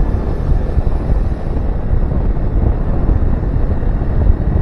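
Heavy wind buffeting the microphone on a moving motorcycle, a steady rumbling roar that covers the engine and road noise.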